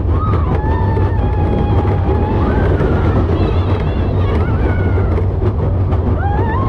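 Steel roller coaster train running along its track: a steady low rumble with wind noise on the microphone, and long high squeals drawn out over it, several lasting a second or more.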